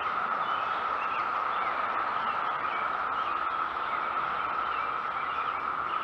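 Chorus of 17-year periodical cicadas: a steady, unbroken drone, with short faint bird chirps scattered over it.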